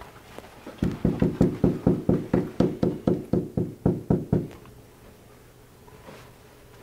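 Knuckles knocking rapidly on a dorm room door: a run of about sixteen quick, even knocks, four to five a second, lasting about three and a half seconds.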